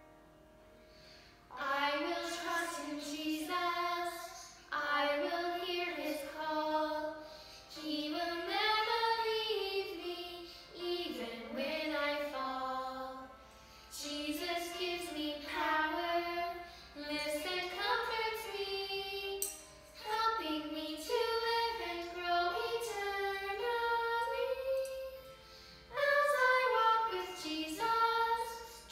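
A woman and a child singing a Primary children's song together, in phrases of a few seconds with short breaths between, starting about a second and a half in.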